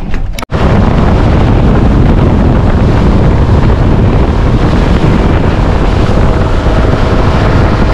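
Heavy wind buffeting the microphone over the rush of a fishing boat running across open water. It starts abruptly about half a second in and holds steady and loud.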